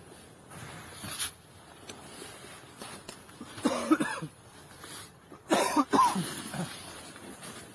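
A man's voice in two short bursts of coughing or muffled vocal sounds, about three and a half and five and a half seconds in, over low background noise.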